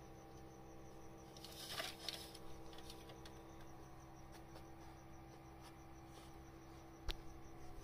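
Faint rustling of cats moving close against the phone, about two seconds in, and a single sharp click near the end, over a steady low hum.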